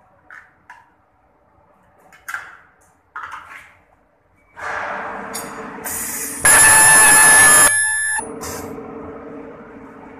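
Ultrasonic plastic welding machine: a few light clicks and knocks, then steady machine noise, and a little past halfway a very loud, shrill, steady whine for about a second as the welding horn fires, cutting off sharply. A steady hum carries on after it.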